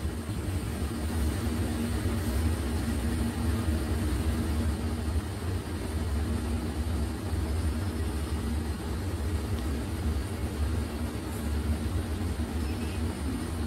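Steady machinery drone of spinning frames running in a textile mill: an even hum with a low tone held throughout.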